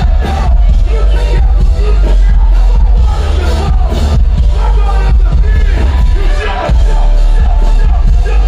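Live hip-hop concert music over a festival sound system: a loud track with heavy bass and a steady beat, with a voice over it.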